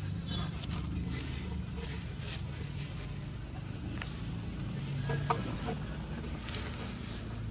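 Plastic bag crinkling as steel roller rocker arms from a 4D56 diesel are handled inside it, with a few faint metal clicks. A steady low hum runs underneath.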